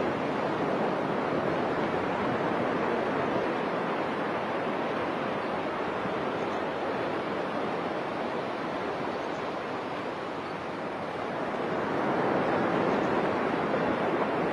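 Ocean surf breaking and washing up a beach, a steady rush that swells louder near the end.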